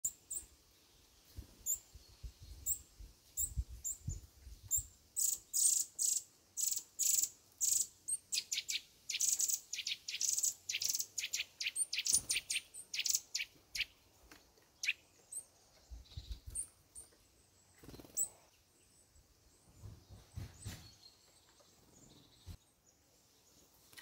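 Small songbirds, tits and Eurasian nuthatches, calling in a dense run of short, high chirps that grows thick through the middle and thins out near the end. A few low rumbles come in between.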